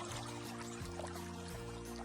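Background music: held bass notes and chords that change together roughly every second.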